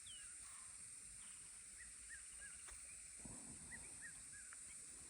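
Near silence, with a few faint, short bird chirps scattered through it and a steady high-pitched hiss.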